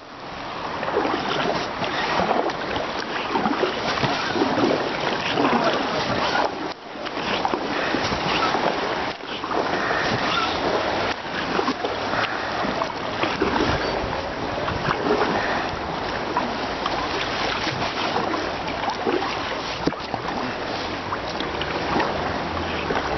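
Water splashing and rushing around a kayak being paddled on a river, a steady dense wash of water noise.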